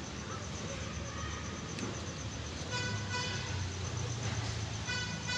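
A vehicle horn honking briefly twice, about three seconds in and again near the end, over a low engine rumble.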